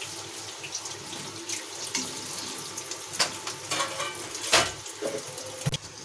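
Kebabs deep-frying in hot oil in a kadhai: a steady sizzling hiss, with a few clinks of a wire skimmer against the pan, the loudest about four and a half seconds in.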